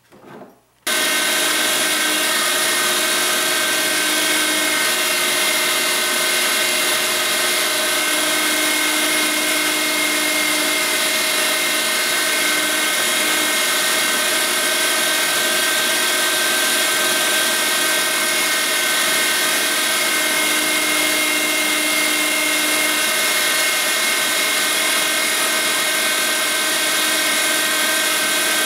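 Guide Gear 350-watt electric meat grinder switched on about a second in and running steadily, a motor whine with a steady hum, as it grinds chunked deer meat into burger.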